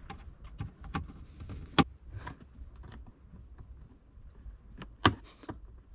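Screwdriver prying at plastic trim clips: scattered light ticks and scrapes, with two sharper clicks about two seconds and five seconds in.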